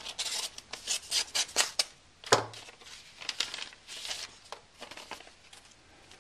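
Paper envelope being torn open and its contents handled: a run of short paper rustles and rips, with one sharper, louder snap a little over two seconds in.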